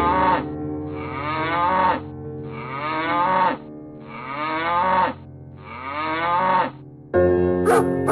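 Cow mooing in a series of about five calls, each about a second long, the pitch bending up and then down. About seven seconds in, music with a plucked string instrument starts.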